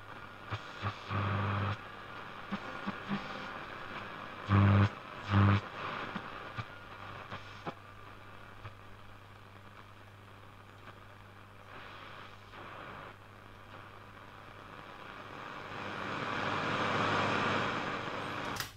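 Loewe-Opta Magnet 3737W tube radio's loudspeaker giving out static, hiss and crackle as the medium-wave band is tuned, with short loud bursts of received signal around five seconds in and the noise swelling near the end, over a steady low hum. A sharp click comes at the very end as a waveband pushbutton is pressed.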